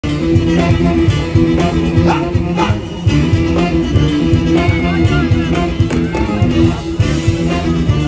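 Live band playing amplified through a PA: electric bass and drums in a steady groove with electric guitars on top.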